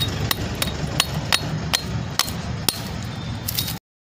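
Sharp, hammer-like taps at an uneven pace, about two to three a second, over a steady low rumble; the sound cuts off suddenly near the end.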